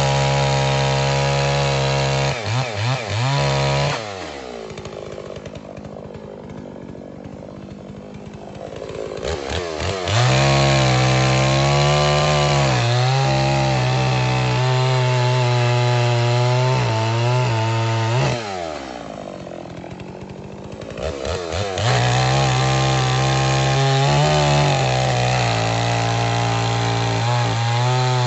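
Holzfforma G660, a 92 cc two-stroke chainsaw with a 36-inch bar, cutting through a stack of sawmill scraps at full throttle, its pitch sagging as the chain bites. It drops back to idle twice, for about five seconds starting around four seconds in and for about three seconds about two-thirds through, and each time revs back up to cut again.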